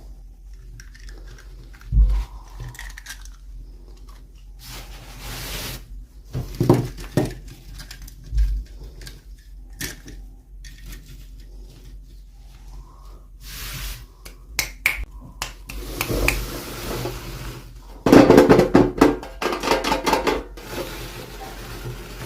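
Small hard plastic toy pieces and packaging being handled: scattered clicks, taps and brief rustles, then a loud rapid clatter of small pieces knocking together for a few seconds near the end.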